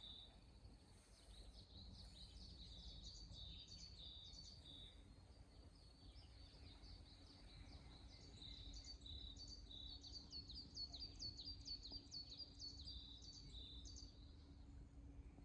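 Faint birdsong in the woods: small birds giving quick, high chirping notes over and over, busier in the second half, over a faint steady low hum.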